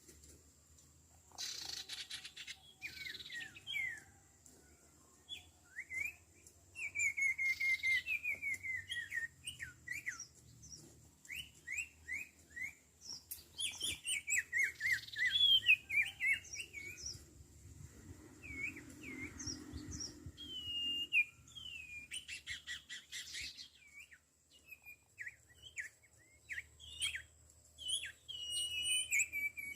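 Small songbird calling busily: runs of quick chirps and short, down-slurred whistled notes in irregular bursts, with a few brief scratchy rustles between them.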